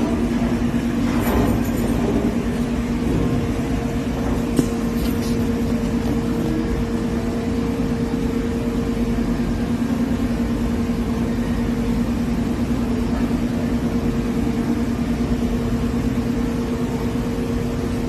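Steady mechanical hum with a low, even tone and a fainter tone an octave above, like a running motor or ventilation fan, with a single faint click about four and a half seconds in.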